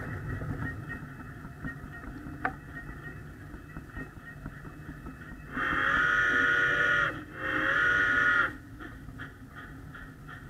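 Two loud whistle blasts, the first about a second and a half long and the second shorter, each sliding slightly in pitch as it starts and stops. Under them is a faint steady background with light regular ticking.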